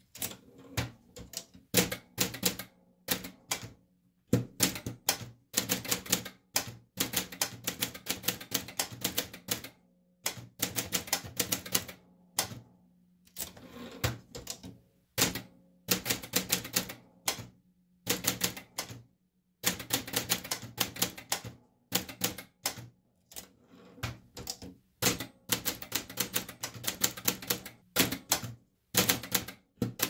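Typewriter typing: the typebars strike the platen in quick runs of keystrokes, broken by short pauses between words and lines.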